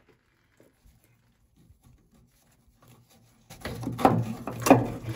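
Near silence, then about three and a half seconds in, a burst of handling noise with two sharp knocks as the old in-line fuel filter is worked free from its hose.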